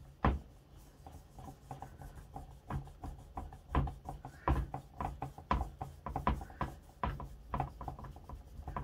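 Damp cotton wool rubbed in short scrubbing strokes over a dirty painted clock dial, cleaning grime off the paint. It makes an irregular run of small rubbing and scuffing sounds, several a second.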